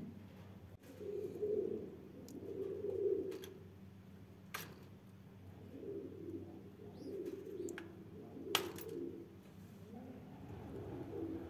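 Domestic pigeons cooing, a series of low coos repeated every second or two. A couple of sharp clicks cut in about four and a half and eight and a half seconds in.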